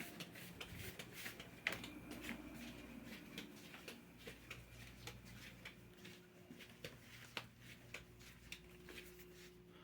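Small mini fan being handled: scattered light clicks and taps, over a faint steady hum. A faint steady tone comes in about six seconds in.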